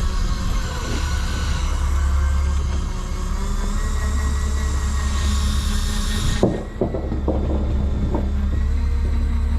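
Boat engine running with a steady low drone. A high hiss over it stops abruptly about six and a half seconds in, followed by a few knocks.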